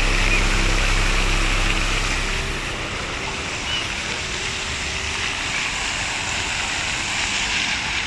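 Many jets of a large musical fountain splashing into its pool: a steady rush of falling water.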